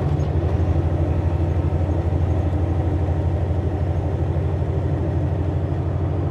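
Semi-truck's diesel engine running steadily under way, heard from inside the cab: a low drone with a fast, even beat.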